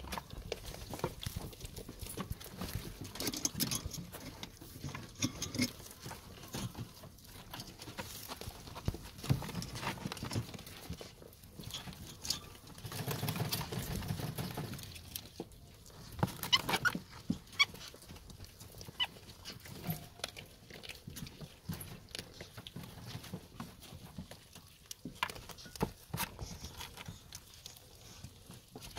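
Ferrets eating a whole raw pigeon: irregular crunching, clicking and tearing as they chew into the carcass. The sounds come in uneven clusters, busiest around the middle.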